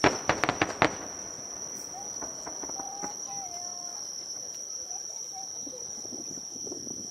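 A quick string of about six sharp firework cracks in the first second. A steady high insect trill, as of crickets, sounds under them.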